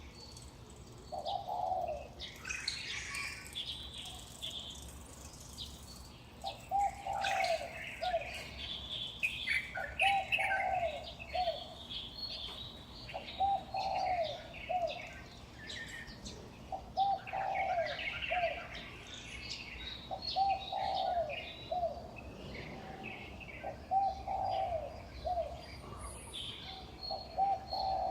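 Dawn bird chorus: a dove cooing in repeated phrases of about three notes, roughly every three and a half seconds, under a busy scatter of higher chirps from small birds.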